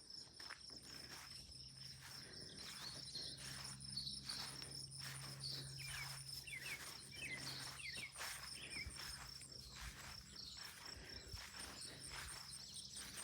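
Footsteps walking outdoors over a steady high trilling of insects, with birds chirping through the middle of the stretch.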